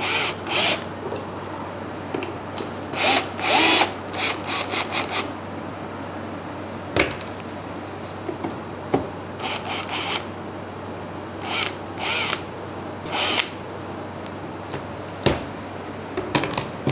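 Cordless drill-driver backing out the screws that hold a cooling fan in a portable power station, running in short bursts of under a second with pauses between. A couple of sharp knocks fall between the bursts.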